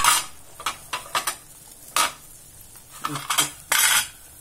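Steel kitchen utensils clinking and scraping against each other in short, irregular clusters of metallic clatter, the loudest at the very start and again near the end.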